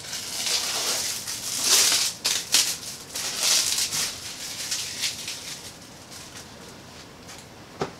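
Thin plastic wrapping crinkling and rustling as it is pulled off a spool of 3D-printer filament, strongest in the first few seconds and dying down after about five seconds, with a single sharp click near the end.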